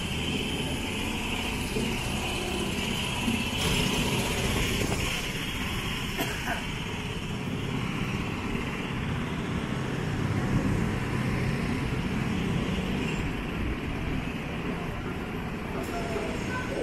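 Busy city street ambience: steady road-traffic noise from passing cars and trucks.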